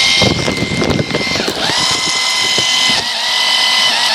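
Small electric drive motor of a toy RC car whining at high speed as it is driven through a deep puddle. About a second and a half in the whine cuts out and spins back up, and it dips once more near three seconds in, over a rough crackling underneath.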